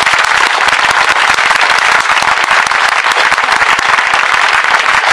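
Audience applauding after an orchestra's piece: dense, steady clapping from a large crowd.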